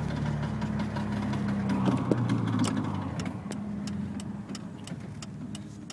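1986 BMW 325e's straight-six engine running while the car drives, with a repeated sharp clicking from the rear of the car, a few clicks a second.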